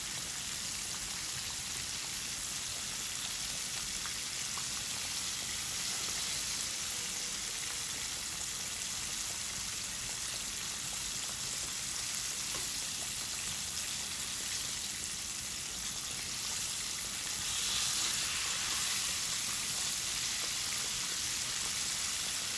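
Breaded chicken pieces deep-frying in hot oil in a kadai, a steady bubbling sizzle. The sizzle swells briefly about three-quarters of the way through.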